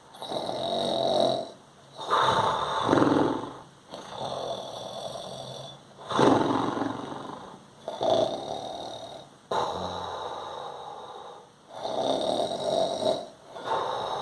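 A man snoring in a steady rhythm, a rasping, nasal snore on each breath, about one every two seconds.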